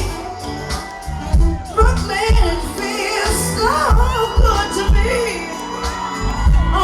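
Live concert band music heard through the PA: a heavy bass beat landing at a steady pace under a sung vocal melody.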